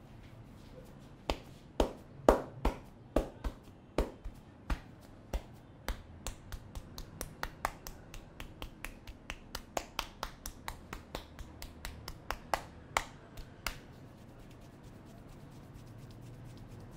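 A long series of sharp snaps or clicks from a barber's hands working on a client's head during a head massage. About forty in all, spaced irregularly at first, then quickening to about three a second before stopping near the end.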